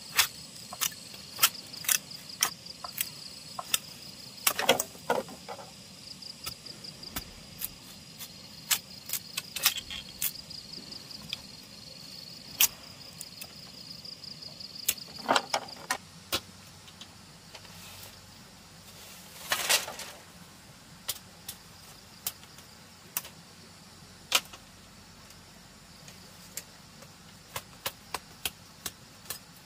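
Frequent sharp, irregular clicks and knocks, with an insect trilling steadily in a high pitch until about halfway through. A short scrape or rustle comes about two-thirds of the way in.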